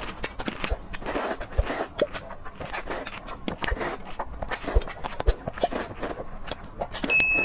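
Close-miked eating of saucy noodles: wet slurping, sucking and chewing in quick irregular bursts. A short electronic tone sounds near the end.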